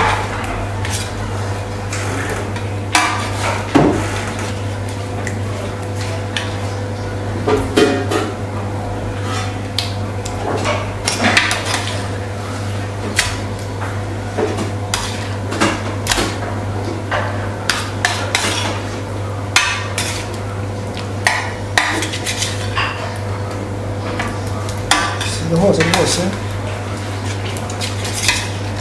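Irregular clinks and taps against a stainless steel pan as seasoned fish fillets are handled and laid in it, over a steady low hum.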